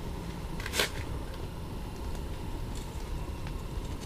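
Low steady rumble with one sharp knock a little under a second in and a few faint ticks.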